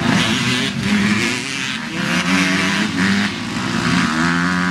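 Several motocross dirt bikes revving hard as they race past and pull away, their engine notes climbing and dropping back over and over.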